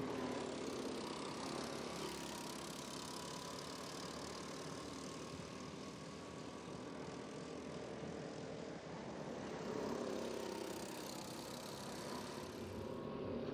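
Go-kart engines running on the circuit, faint and steady, swelling slightly about ten seconds in.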